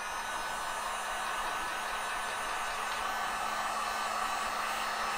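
Genesis electric heat gun running steadily, its fan blowing hot air with a faint steady hum, used to warm a tank-grip pad.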